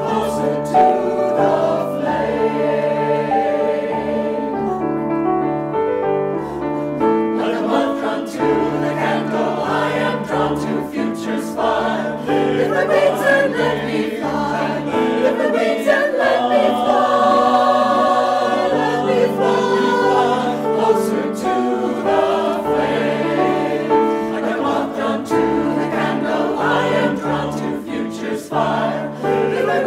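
Mixed-voice choir singing in harmony, with piano accompaniment.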